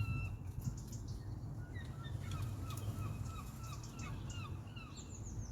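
A bird calling in a quick run of short, repeated notes, about four a second, with a few higher falling notes near the end, over a low steady hum and faint clicks.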